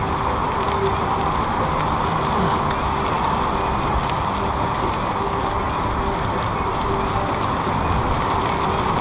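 Steady rushing noise with a faint hum, with no clear events.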